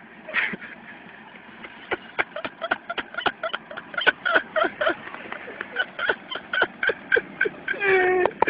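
A person laughing hard in quick, even bursts, about four or five a second, ending in a longer drawn-out voiced sound near the end.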